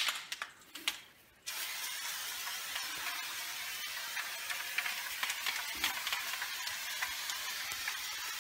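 Aerosol can of Homax oil-base orange peel wall texture spraying, a steady hiss with small spattering ticks that starts after a brief pause about a second and a half in.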